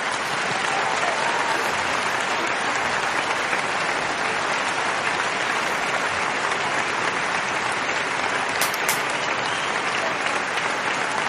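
Canned crowd applause: many hands clapping, dense and steady.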